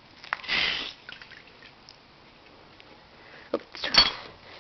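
A short, breathy sniff about half a second in, then a few clicks and a sharp knock near the end, the loudest sound here.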